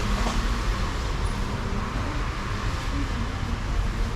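Steady road traffic noise, a low rumble with a fainter hiss over it.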